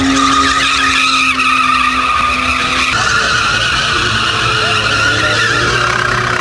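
Car tyres squealing continuously as a car spins donuts on tarmac, with the engine running at high revs underneath. The squeal and the engine note both shift about three seconds in.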